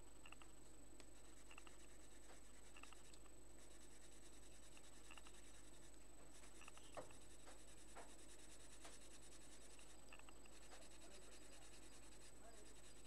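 Faint scratching of a pencil shading back and forth on paper, blackening a dark area of a drawing, with a few light ticks and a small click about seven seconds in.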